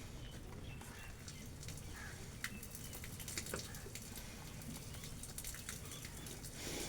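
Chickens pecking at scattered grain: many quick, irregular taps, growing busier about halfway through.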